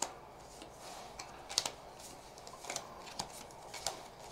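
Magic: The Gathering cards being handled and sorted by hand: a handful of short, light clicks and swishes as cards are slid and set down on stacks on the table.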